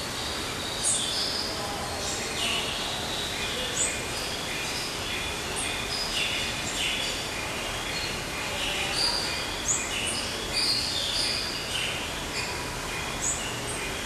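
Several birds calling at once: many short, high chirps and whistles overlapping throughout, over a steady background hiss.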